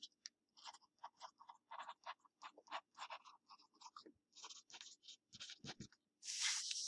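Ballpoint pen writing on paper: a quick run of short scratchy strokes as a short phrase is handwritten. A louder brief hiss comes near the end.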